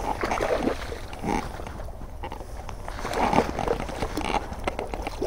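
Hooked largemouth bass thrashing and splashing at the water's surface as it is played in to the bank. The splashes come in bursts, at the start and again about three seconds in.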